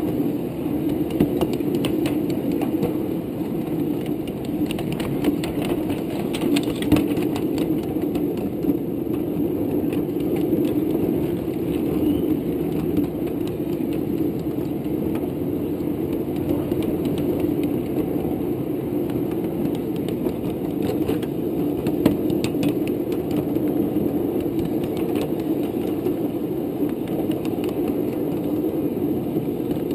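Ride-on miniature railway train rolling along its track with a steady rumble, overlaid by scattered clicks and rattles from the wheels and cars.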